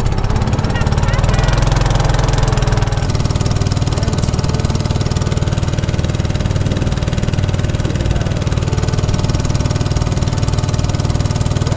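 Small engine of a wooden river boat running steadily at cruising speed, driving the boat along the river. It makes an even, loud drone.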